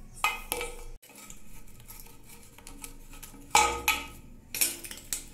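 Metal tap fittings being handled and tightened on a wash basin: a few sharp clinks and knocks, the loudest about three and a half seconds in.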